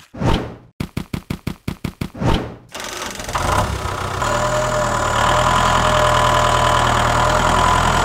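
Tractor engine sound starting up: after a brief swish, a quick run of about ten cranking strokes, then the engine catches and runs steadily with a low rumble.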